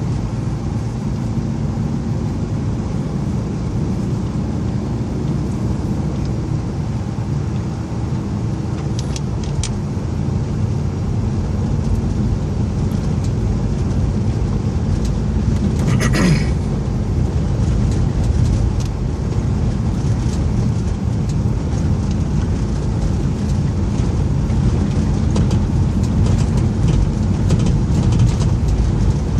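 Steady engine and road noise heard from inside a moving four-wheel-drive truck's cab, a low rumble that grows a little louder about halfway through. A brief higher-pitched sound cuts in a little past the middle.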